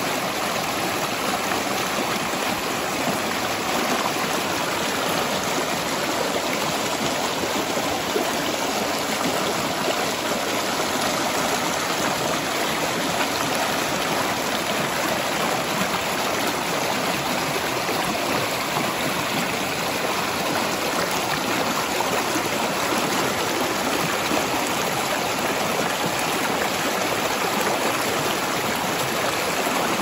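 Shallow mountain stream rushing and splashing over rocks in small rapids: a steady, even water noise with no breaks.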